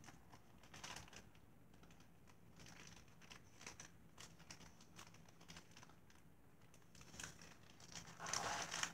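Small plastic packets and a plastic mailer bag handled on a table: faint scattered ticks and rustles, then louder crinkling of the plastic bag near the end.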